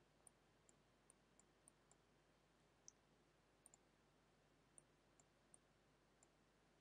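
Near silence with about a dozen faint, short computer mouse clicks at irregular intervals.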